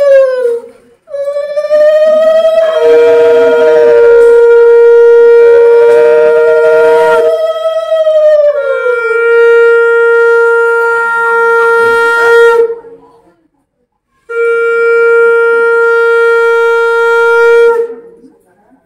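Conch shells (shankha) blown in long held blasts, often two at once. One holds a steady note while the other wavers and drops in pitch as each of its blasts ends. The blowing breaks off briefly about a second in and again for about a second near the thirteen-second mark.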